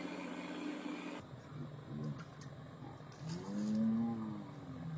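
A steady low hum cuts off about a second in. Then a man gives a short wordless call, and then one long drawn-out call that rises and falls in pitch, as a hooked catfish splashes at the surface beside the boat.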